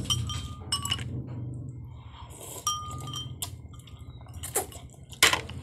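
Eating utensils clinking against bowls in a few separate short clinks, some ringing briefly, with a sharper knock near the end. A steady low hum runs underneath.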